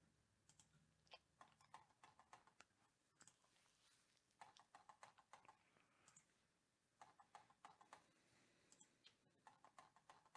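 Faint computer keyboard typing and clicking, in several short runs of quick keystrokes.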